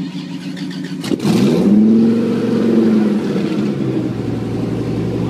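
Performance car engine idling, then revved hard about a second in: the pitch rises quickly and holds at a high steady note.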